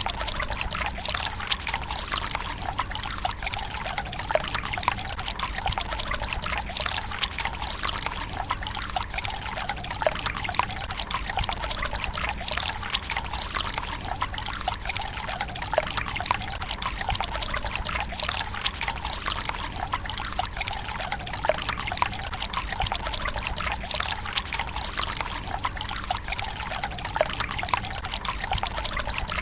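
Water running from a bamboo spout into a tsukubai's stone basin: a steady trickling pour with many small splashing plinks and no pauses.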